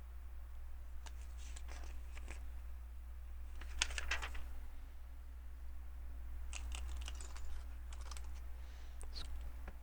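Small plastic LEGO pieces clicking and clattering as they are handled and pressed together, in several short clusters of light clicks, over a steady low hum.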